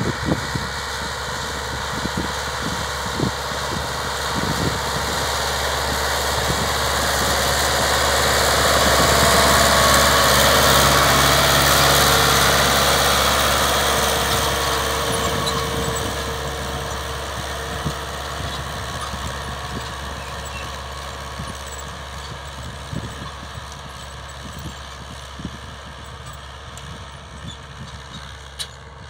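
Farm tractor engine running as it pulls a seed drill. It grows louder as the tractor passes close by about ten seconds in, then fades as it drives away.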